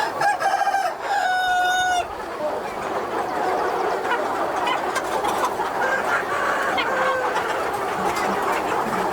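A rooster crows in the first two seconds, a long call with a break near the middle. Under it and after it, a flock of chickens keeps up a steady clucking and chatter.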